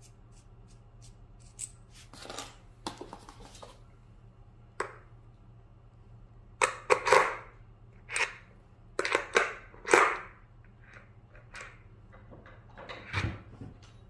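Irregular clicks and clanks of metal parts and hand tools being handled during assembly, with a run of sharp knocks from about seven to ten seconds in.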